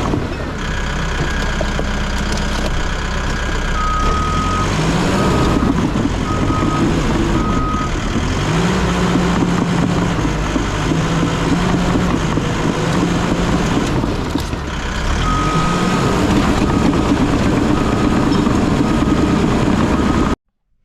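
Bulldozer's diesel engine working under load, its pitch rising and falling several times, with a backup alarm beeping in two spells as the machine reverses.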